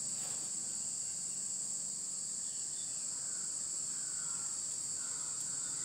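Steady high-pitched chirring of crickets, with a few faint scrapes of chalk on a blackboard in the second half.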